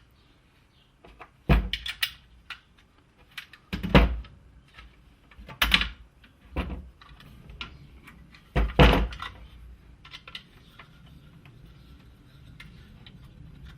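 Parts of a pneumatic framing nailer being handled and fitted back together by hand: a series of separate clunks and clicks, the loudest about four seconds in and again near nine seconds.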